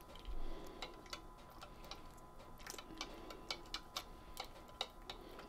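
White plastic spoon stirring broth in a glass measuring cup, tapping lightly and irregularly against the glass, about two to three faint clicks a second.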